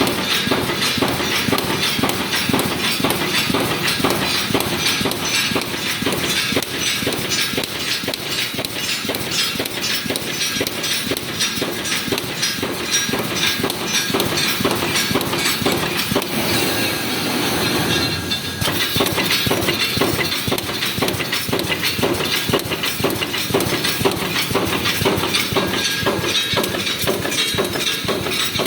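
Bed-base wire mesh welding machine running: a steady mechanical clatter thick with rapid, repeated clicks and knocks as it feeds and welds wire into mesh. A hiss rises over it for about two seconds partway through.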